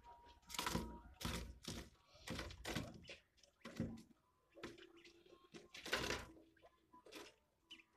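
Quails pecking at and scuffling over a locust on a dusty board floor: irregular knocks, taps and scuffs, about a dozen, unevenly spaced.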